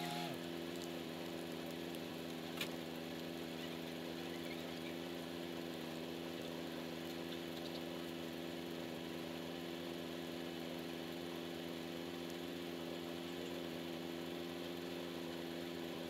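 Farm tractor engine idling steadily. It settles to a lower idle just after the start. There is a single sharp click about two and a half seconds in.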